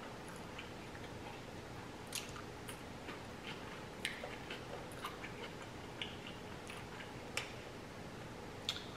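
A person chewing a saucy black bean cheeseburger, with faint, irregular wet mouth clicks and smacks.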